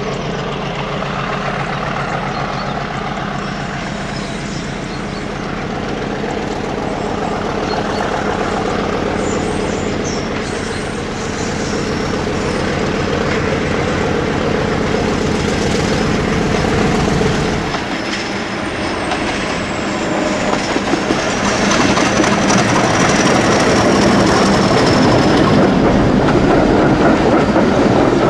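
Diesel locomotive hauling coaches, its engine running steadily under power as it approaches. About two-thirds of the way through the engine sound drops away as it passes, leaving a high whine that falls in pitch. The coaches then roll by with wheels clattering rhythmically over the rail joints.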